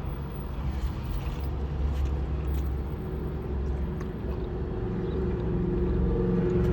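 Low, steady engine hum of a car with a few faint clicks, growing gradually louder toward the end.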